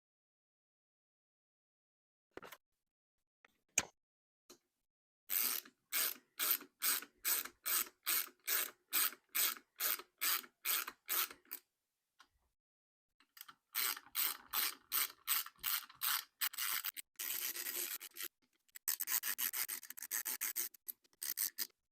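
Hand ratchet clicking in quick, even strokes as bolts are run down by hand before torquing. There are two spells of it, and the second is faster and denser toward the end.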